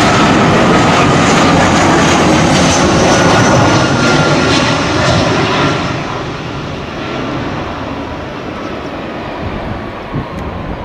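Twin-engine jet airliner's engines on low final approach: a loud jet rumble and hiss with a thin whine that drops slightly in pitch. It turns quieter about halfway through as the plane settles onto the runway.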